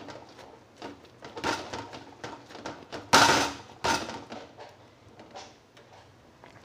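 Metal spoon stirring a pot of leaves and potatoes in water, with scattered scrapes and knocks against the pot; the loudest comes about three seconds in, another just before four seconds.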